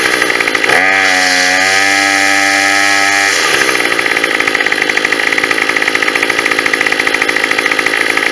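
Small two-stroke gas grass trimmer engine running soon after a cold start, slightly boggy. It dips right at the start and picks back up, then about three and a half seconds in changes to a harsher, faster-pulsing note.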